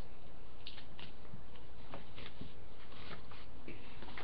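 Folded paper being handled and taped: scattered light rustles, crinkles and small clicks over a steady low background hum.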